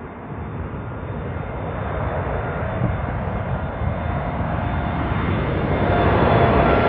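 Boeing 747's four jet engines on final approach, a rumbling noise growing steadily louder as the airliner nears, with a thin whine of engine tones over it that strengthens towards the end.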